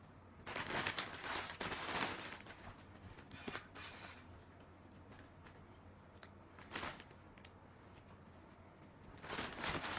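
Packaging rustling and crinkling as items are handled, in bursts: a long one about half a second in, a short one near seven seconds, and another starting just past nine seconds.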